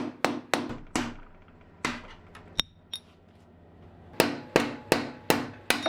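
Hammer striking a long screwdriver used as a drift against a motorbike's steering head bearing race ring to knock it out: sharp metal-on-metal blows about three a second. After the first run there is a pause with two light metallic clinks, then another run of blows.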